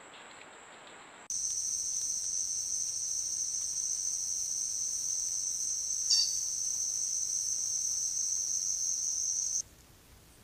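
Loud, steady, high-pitched insect drone that starts abruptly about a second in and cuts off abruptly near the end. A brief short chirp breaks through about six seconds in.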